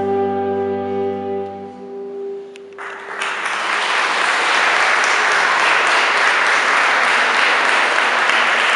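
A wind band's final held chord fades out over the first few seconds. About three seconds in, the audience breaks into applause, which carries on steadily.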